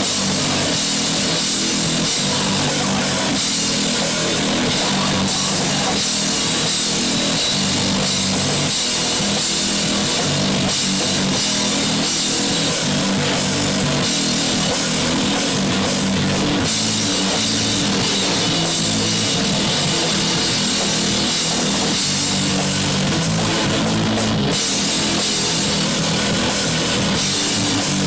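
Punk rock song played by a full band: drum kit with cymbals and electric guitar, loud and dense.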